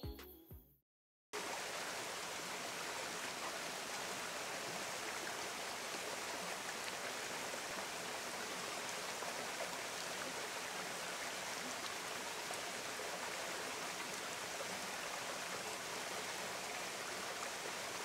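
Stream running over rocks: a steady rush of water that cuts in suddenly about a second in, after a brief silence. A tail of music ends just before the gap.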